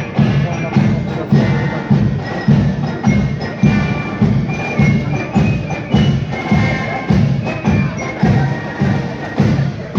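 Marching band music at a street parade: a steady, loud drum beat at about two beats a second with melody notes held above it.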